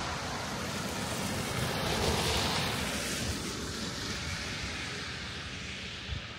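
A road vehicle passing by, its tyre and road noise fading steadily as it moves away, with a slight swell about two seconds in.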